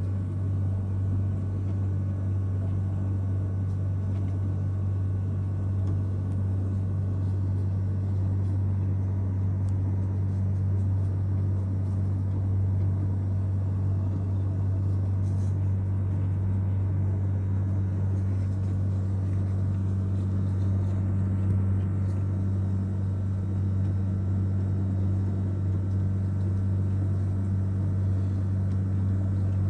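A steady low hum, unchanging throughout, with a few faint clicks.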